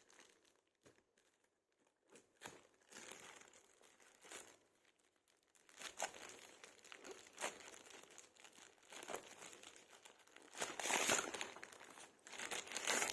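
Parcel packaging being handled and opened by hand: irregular crinkling and rustling with scattered clicks, quiet at first and louder in bursts from about halfway through.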